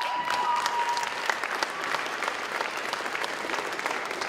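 Audience applauding with dense clapping. Near the start, a high whooping cheer rises and holds its note for about a second above the clapping.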